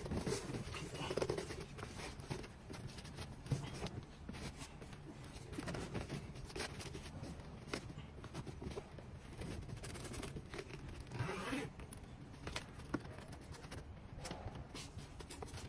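A car seat cover being worked onto a seat by hand: irregular rubbing and scraping of the cover material, with short zip-like rasps.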